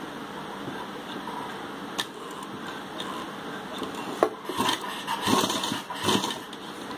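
Sewing machine stitching a collar seam slowly, with fabric handled under the presser foot. Two single sharp clicks, then louder, uneven machine and fabric noise over the last two or three seconds.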